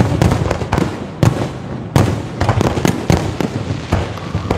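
Fireworks display, shells bursting in a rapid, uneven string of overlapping bangs.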